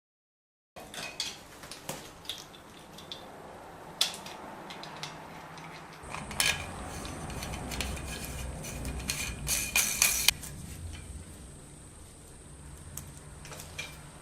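Clinks and knocks of hard objects being handled. A low rumble comes in about six seconds in, and the loudest knocks come near ten seconds.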